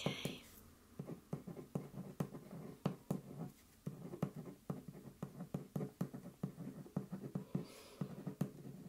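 Pen writing on paper: a run of soft, irregular scratching strokes and taps.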